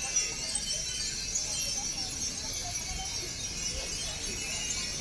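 Many Japanese wind chimes (furin) tinkling together in the breeze, a continuous high, glassy jingling.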